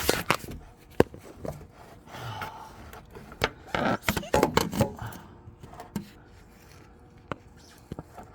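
Hand tools and metal parts clicking, knocking and scraping at irregular intervals, with a busier stretch of knocks and scrapes around the middle, while work goes on at a car's motor mount.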